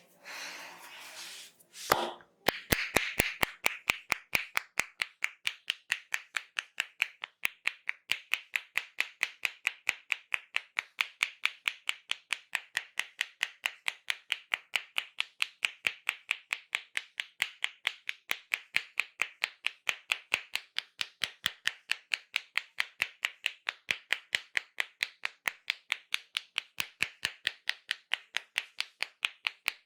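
Hollow, cupped-hand claps of a head massage, the barber's hands striking the head in a fast, even rhythm of about four a second. The claps start about two seconds in and keep going, after a short rustling rub.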